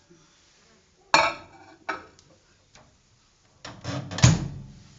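A ceramic plate clattering a few times as it is handled in a microwave oven, then a louder cluster of knocks ending in a thump about four seconds in, as the microwave door is shut.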